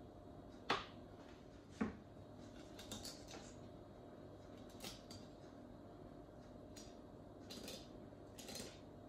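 Kitchen knife filleting a whole rainbow trout along the backbone. There are two sharp clicks, one a little under a second in and one about two seconds in, then faint scrapes and cuts as the blade works the fillet off the bones.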